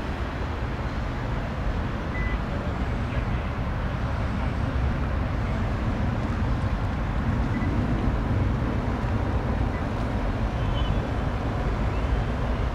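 Airbus A319 jet engines at takeoff thrust as the airliner climbs away: a steady noise heaviest in the low end, growing slightly louder after the first couple of seconds.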